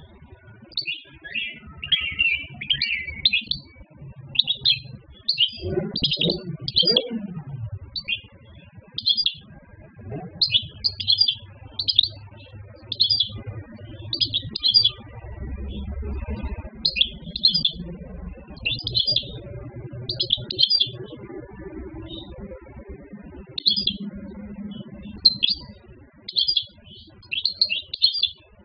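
Wild-caught European goldfinch singing in a cage: short, high twittering phrases repeated every half second to a second.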